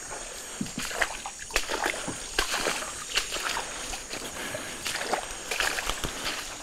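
Footsteps splashing and squelching irregularly through shallow water and mud as people climb out of a wooden canoe and walk along a flooded forest trail. Insects drone steadily behind.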